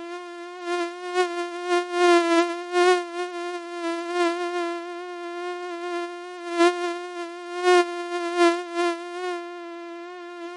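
Mosquito buzzing: a steady high whine that wavers a little in pitch, swelling louder several times as if passing close by.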